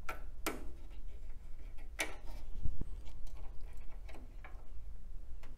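Scattered light clicks, about five or six spread irregularly, from a CR2032 coin-cell CMOS battery being worked out of and pressed into its spring-clip holder on a PC motherboard.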